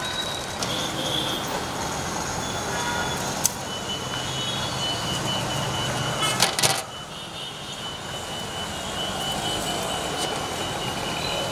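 Street traffic noise from passing motor vehicles. From a few seconds in, a high, rapidly pulsing electronic beep runs on through it. Sharp metallic clinks sound once about a third of the way in and several times just past halfway.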